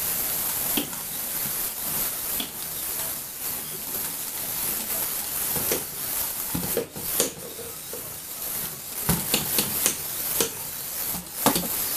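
Lego Technic two-wheeled model spinning and rolling on a wooden floor: a steady hissing rush from the spinning model and its rubber-tyred wheels on the floor. In the second half it is broken by a run of sharp knocks and clatters of plastic parts striking the floor.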